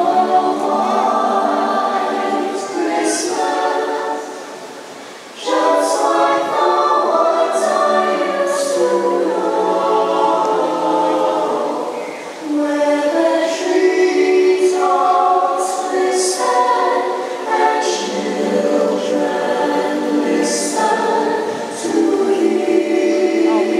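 Choir singing Christmas music over the show's sound system, the voices fading briefly about four seconds in and coming back strongly about a second later.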